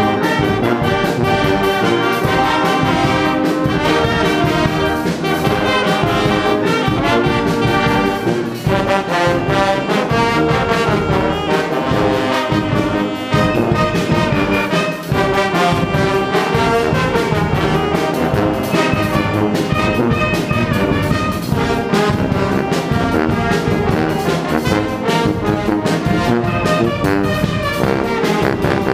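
A street brass band playing a lively tune live, with saxophones, trumpets, trombones, a sousaphone and clarinets over a drum kit keeping a steady beat.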